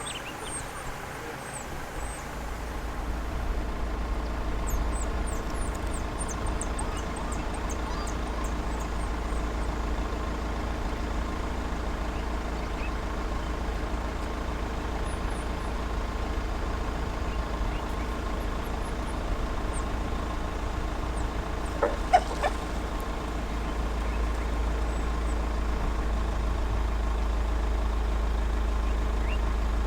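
A large vehicle's engine idles steadily with a low hum. Faint high-pitched chirps come and go over it, and there is one short, louder squeal about two-thirds of the way through.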